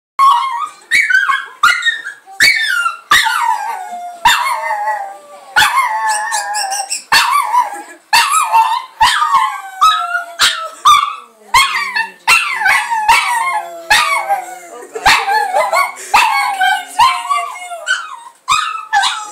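Pug howling: a long run of yelping howls, one or two a second, each starting sharply on a high note and sliding down in pitch.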